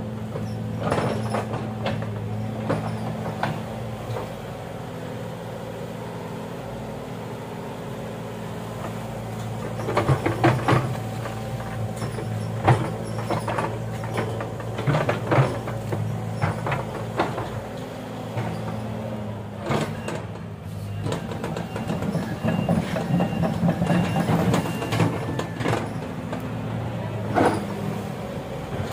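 Excavator's diesel engine running steadily, with repeated sharp metal knocks and clanks over it.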